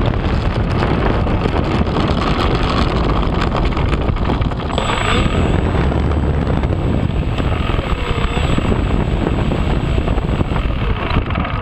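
Onboard sound of an FMS RC plane's propeller and motor, heard with heavy wind buffeting on the camera microphone as the plane rolls along the runway. The noise fades right at the end as the propeller slows.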